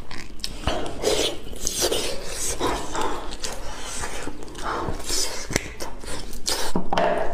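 Close-miked ASMR eating: a run of irregular chewing and lip-smacking sounds as tender braised meat is torn from the bone and bitten.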